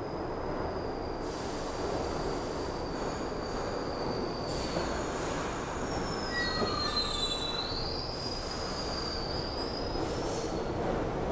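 An R62A subway train pulling out of the station, running past with a steady rumble. Its wheels squeal in thin, high tones that slide up and down in pitch, most strongly about halfway through.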